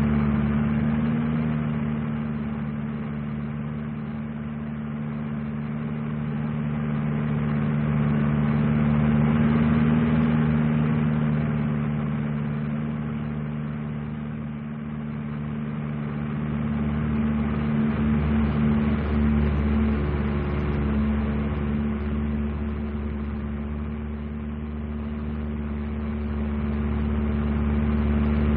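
Single-engine propeller aircraft engine running steadily, swelling louder and fading in slow waves about every ten seconds as the plane passes near and then away.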